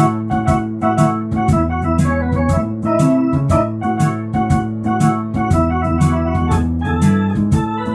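Electronic organ playing a melody over sustained chords and a bass line, backed by the instrument's built-in shuffle drum rhythm.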